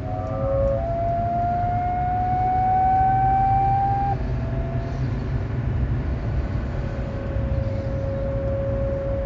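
A high whine from a 2010 BMW E92 while driving, over a low road rumble. The pitch climbs slowly for about four seconds, drops, then holds a little lower and steady. The noise starts only at about 20 mph and appeared a day after new driveshaft flex disks and a new center support bearing were fitted.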